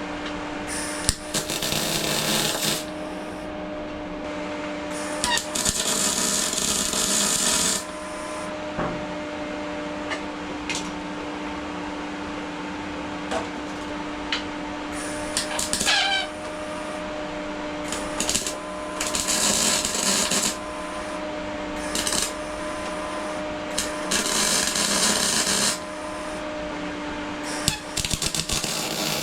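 MIG welder laying short welds on steel box section: several crackling, hissing bursts of arc a second or two long, over the steady hum of the welder, with sharp clicks and pops between them.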